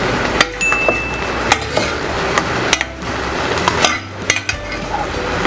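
Metal utensil stirring thick tomato sauce in an enamel pot, with repeated sharp clinks and knocks against the pot's rim and sides and one brief ringing clink about a second in.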